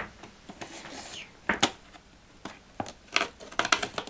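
Cardboard toy box being opened with scissors and handled: scattered sharp clicks and rustles, with a cluster of clicks near the end.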